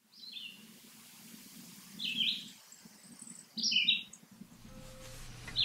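A songbird singing four short phrases, one about every one and a half to two seconds, each stepping down in pitch.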